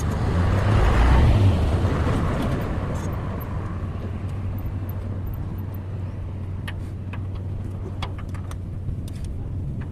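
A motor vehicle passes close by: its noise swells to a peak about a second in and fades over the next few seconds, above a steady low engine hum. A few light clicks come near the end.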